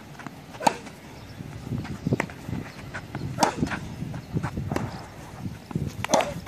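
Tennis rally on a hard court: sharp cracks of the ball struck by racket strings and bouncing, one every second or so at an uneven pace.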